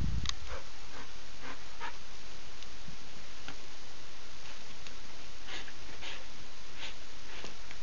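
A dog's quick breaths and scuffs come in short, scattered bursts as it leaps repeatedly at a tree branch, over a steady hiss. There is a low thump right at the start.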